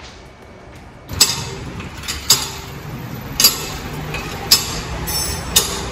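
Hydraulic floor jack being pumped to lift a car for a tyre change: a sharp metallic clank about once a second, five times, over a steady low hum of the workshop.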